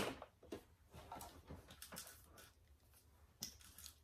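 Faint, scattered small taps and rustles of hands handling the parts of a scent diffuser as it is assembled.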